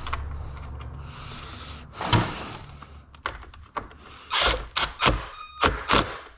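Radiator and fan shroud parts being handled and fitted together: one clunk about two seconds in, then a run of sharp knocks and clicks.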